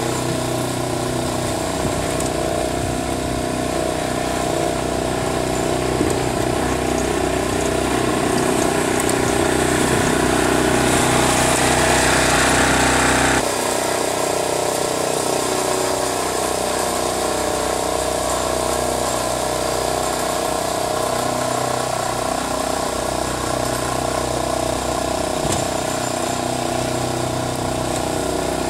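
Wolf-Garten garden tractor's engine running steadily while it pushes snow with a front blade. A louder hissing, scraping noise builds from about ten seconds in and cuts off suddenly a few seconds later.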